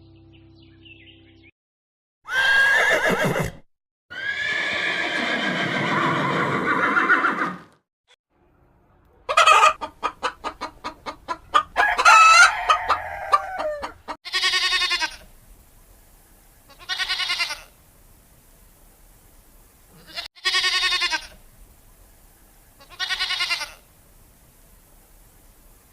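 Chickens: a rooster crowing and hens clucking in quick runs, followed by four short, evenly spaced pitched calls.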